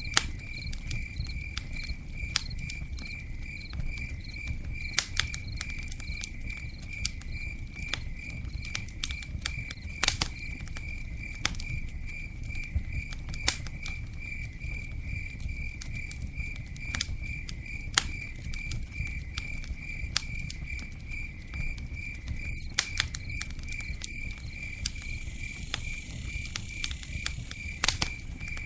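Campfire crackling, with scattered sharp pops over a low rumble from the burning wood, while a cricket chirps in a steady, even rhythm.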